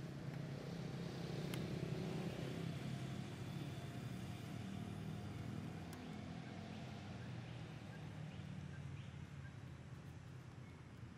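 Steady low drone of an engine running, with two faint sharp clicks, one about a second and a half in and another around six seconds.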